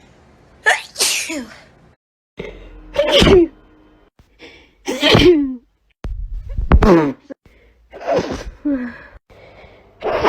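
A string of human sneezes, about six, each a sudden voiced burst whose pitch drops as it ends. They come back to back, with abrupt breaks between them.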